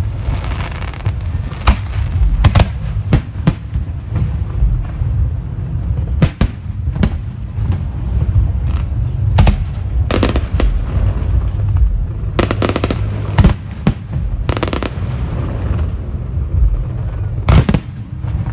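Aerial fireworks display: shells bursting in a running series of irregularly spaced bangs over a continuous low rumble, with a couple of quick clusters of bangs in the second half.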